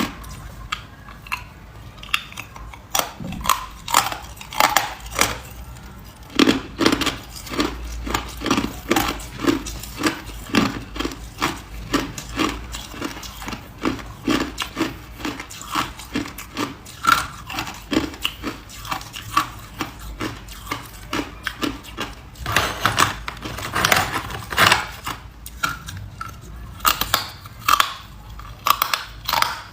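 A person biting and chewing hard ice close to the microphone: a steady run of sharp crunches, about two a second, with a denser crackling stretch past the middle.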